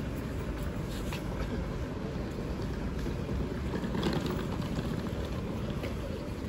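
Steady low rumble of busy city street ambience, with a few faint clicks and knocks.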